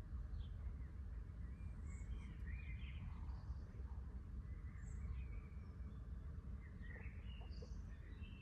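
Small birds chirping and calling, with many short high chirps scattered throughout, over a steady low background rumble.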